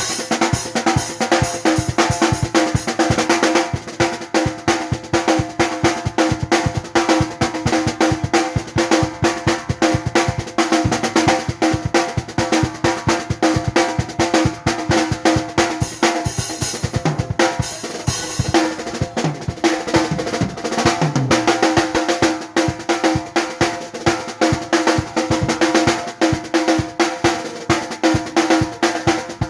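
Drum kit played in fast, continuous strokes on snare, bass drum and toms, a drummer's sound check, with the drums ringing on under the hits.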